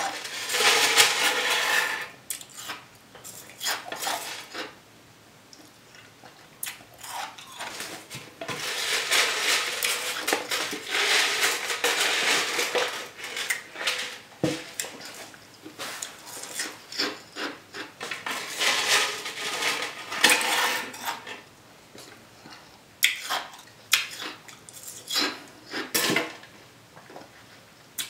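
An eating utensil scraping and clinking against a dish, in three longer stretches of scraping with short sharp clicks between them.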